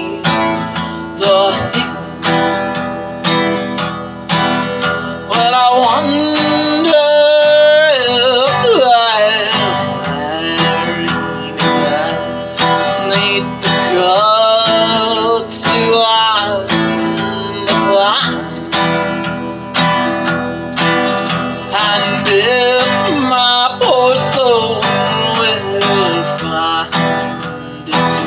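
Acoustic guitar strummed in a steady rhythm, with a woman singing a country song over it.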